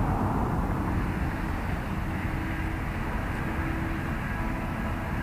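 Wind blowing across the microphone, a steady low rumble and rush that eases slightly after about a second.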